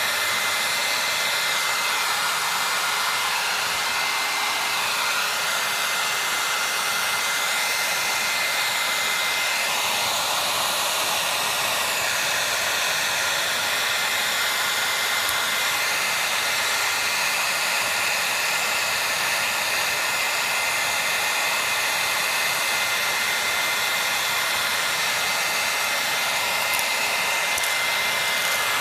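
A blower running steadily: an even rushing hiss of air with a faint high whistle held throughout.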